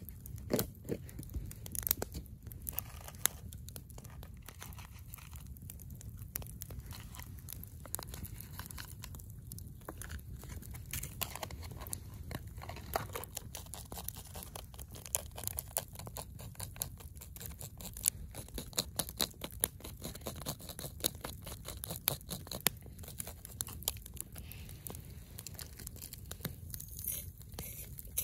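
Wood campfire crackling, with frequent sharp pops and snaps over a low steady rumble.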